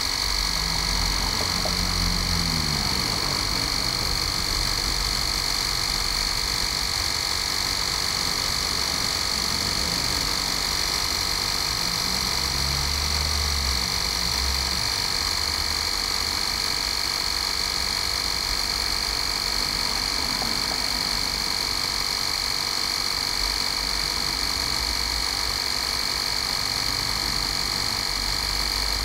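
Bosch EasyPump cordless mini compressor running steadily with a constant high whine as it pumps up a car tyre, the pressure standing at about 2 bar on its way to a 2.2 bar target.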